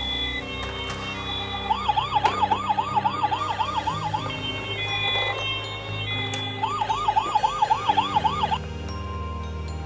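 Toy ambulance bus sounding its electronic siren: a fast warbling wail, about three and a half rises and falls a second, in two bursts of roughly two seconds each. A simple electronic tune plays alongside it.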